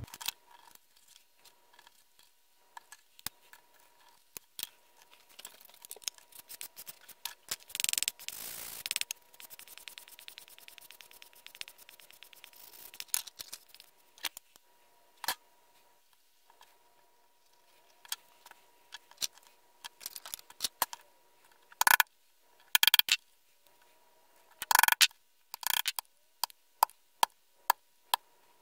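Hand tools, hardware and leather being handled on a wooden leatherworking bench: scattered small clicks and taps, with a brief rasping sound about eight seconds in. Louder knocks come in the last third, then a run of light taps near the end as a mallet comes into use on the leather.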